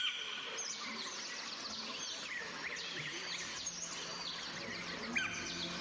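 Several birds chirping and calling, with many short high notes sliding up and down, over a steady outdoor background hiss.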